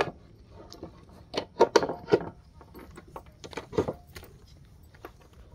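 A few sharp knocks: a quick cluster about a second and a half in, then one more near four seconds in.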